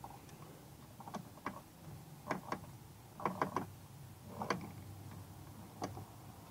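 Faint, irregular clicks and rattles from a speedometer cable being pulled and worked through a wiring harness in an engine bay, with about eight separate clicks.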